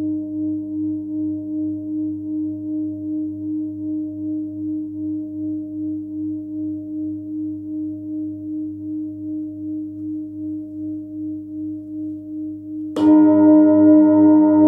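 A 30.6 cm hand-hammered Nepalese singing bowl tuned to about 99 Hz (G) ringing on with a slow wavering pulse, two or three beats a second, and gradually fading. About thirteen seconds in it is struck again with a felt mallet and rings out loudly with many overtones.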